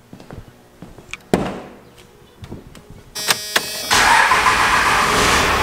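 A loud thump about a second in. Then a 1997 Dodge Ram's 5.9-litre 12-valve Cummins inline-six diesel cranks briefly, catches about four seconds in and runs loudly at idle through a 4-inch straight-pipe exhaust.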